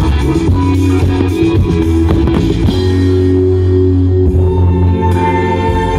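Loud rock music with guitar and drums, settling into long held chords about halfway through.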